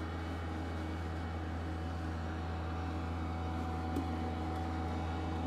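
Steady low mechanical hum of room equipment, with one faint click about four seconds in.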